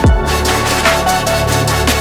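Background electronic music with a heavy bass line and a steady beat.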